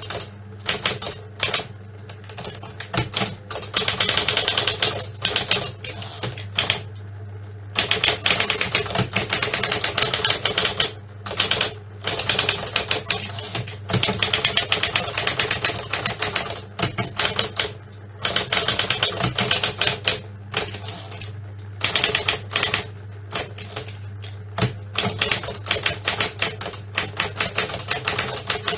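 Typewriter being typed on: fast runs of sharp key strikes, broken by a few short pauses, over a steady low hum.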